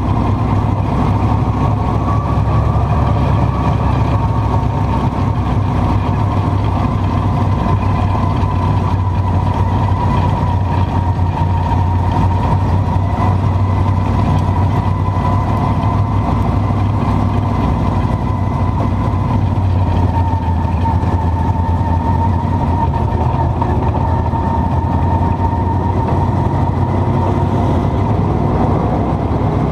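Dirt track race car engine running at steady, unchanging revs, heard from inside the car's cockpit.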